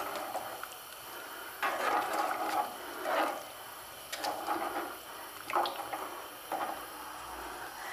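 A metal spoon stirring a pounded spice paste into hot water in a nonstick frying pan: irregular liquid swishes and sloshes roughly once a second, with a few light clicks of the spoon against the pan.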